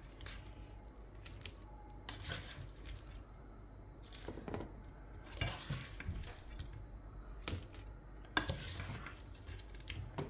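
A utensil scraping and clinking against a metal frying pan as cooked shrimp are scooped out and dropped onto a plate: about eight separate short scrapes and clinks, spread unevenly.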